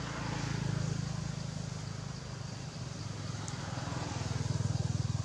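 Low hum of a motor vehicle engine running past, louder about a second in and again near the end.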